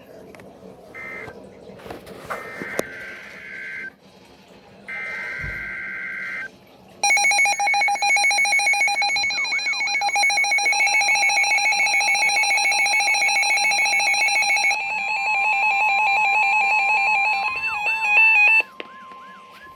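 NOAA Weather Radio alert tones: a few short electronic data bursts, then from about 7 s in a loud, rapidly pulsing electronic alarm lasting about twelve seconds, with a steady tone joining it near the end. The tones mark the start of a new warning message.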